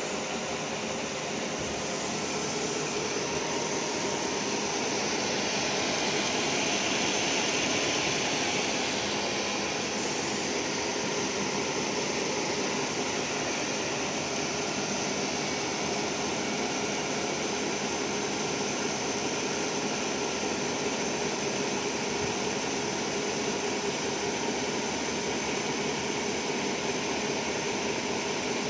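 Roll grinding machine grinding a corrugated roll under flowing coolant: a steady hiss with a machine hum beneath it, swelling slightly about six to eight seconds in.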